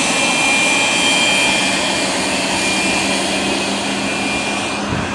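Private jet's turbofan engines running: a steady loud rush with a high whine over it, the upper part fading near the end.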